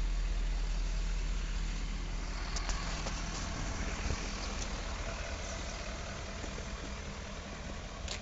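Vehicle engine idling: a steady low rumble that fades slowly, with a few light clicks.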